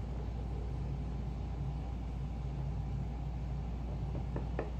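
Steady low hum, with three light metal clicks close together near the end as the bezel is handled on the ring mandrel.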